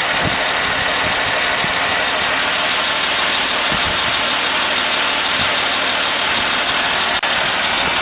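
Land Rover Discovery 3 running steadily while its electronic air suspension is raised. The noise is even and unbroken except for a short click-like break about seven seconds in.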